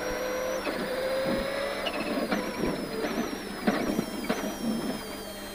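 Rally car engine heard from inside the cabin, revving up hard with several sudden drops in pitch at gear changes and a few sharp clicks. The revs fall near the end as the car slows.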